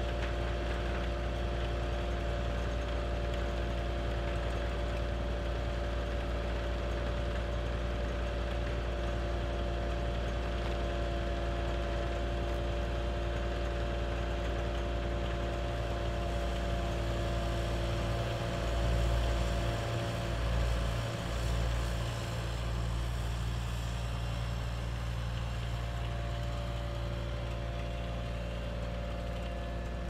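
Compact excavator's diesel engine running steadily as its grapple lifts and swings a board. The engine note swells unevenly a few times about two-thirds of the way through.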